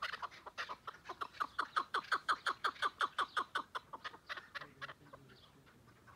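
Chukar partridge calling: a fast run of short, clucking chuk notes, about five a second, that builds to its loudest in the middle and fades out after about four and a half seconds.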